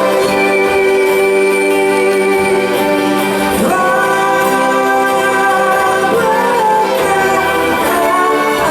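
Music: a slow piece of long held notes, with a voice singing over the instruments.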